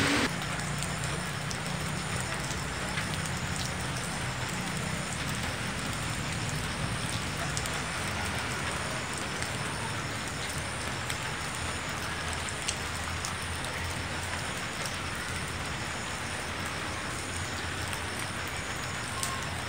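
Steady light rain, a drizzle falling, with a low steady hum underneath.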